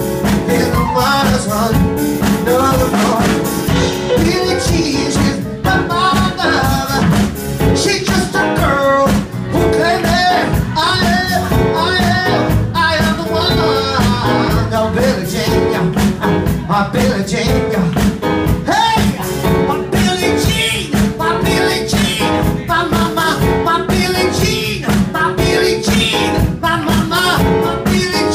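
A live soul band playing: a singer over drums and electric bass guitar, with a steady beat.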